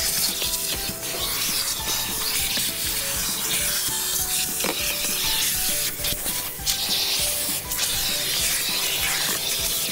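Self-serve car wash vacuum hose running with a steady hiss while its plastic nozzle scrapes and rubs over a rubber floor mat, sucking up dirt and crumbs. Light background music plays over it.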